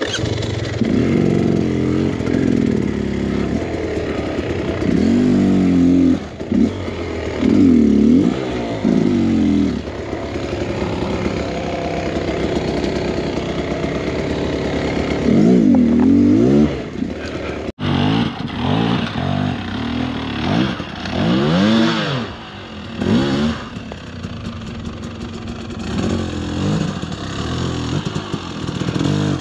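Two-stroke dirt bike engine, a Beta X Trainer 300, revving up and down in repeated short throttle bursts as the bike is worked slowly over rocks and logs, with clatter from the bike on the rough ground. The sound breaks off for an instant a little past halfway, then the revving bursts go on.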